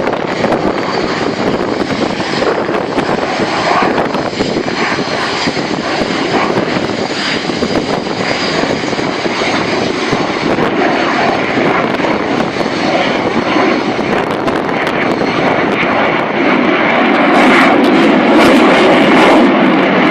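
A fixed-wing aircraft's engine running as the plane flies overhead: a loud, continuous noise that grows louder in the last few seconds.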